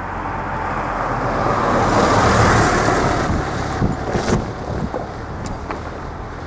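A car passing close by and driving over the level crossing: tyre and engine noise swells to a peak and then fades as it moves away, with a few sharp knocks shortly after the peak.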